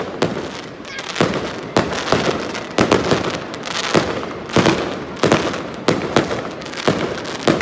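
Fireworks display: aerial shells bursting in quick succession, a dozen or so sharp bangs at uneven intervals, with crackling between them.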